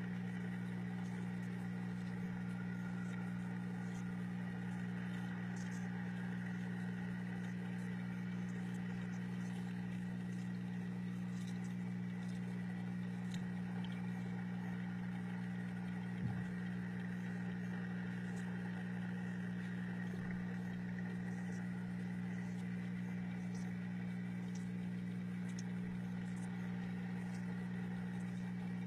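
Steady, unchanging low hum of an electric pump running on a fish tank, with faint scattered ticks and a single soft knock about halfway through.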